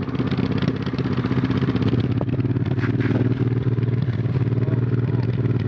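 Honda Transalp's V-twin engine running steadily at an even pitch, with a couple of light clicks in the middle.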